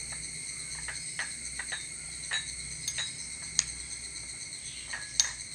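Steel spoon clinking and scraping against a small glass bowl while stirring wheat flour and water into a dough, a dozen or so irregular clinks with two sharper knocks. Underneath runs a steady high-pitched drone.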